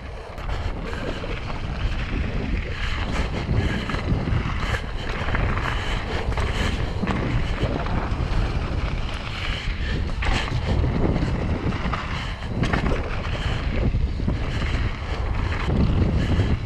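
Wind buffeting the microphone as a mountain bike runs down a dirt trail, with steady tyre rumble and scattered knocks and rattles as the bike goes over bumps.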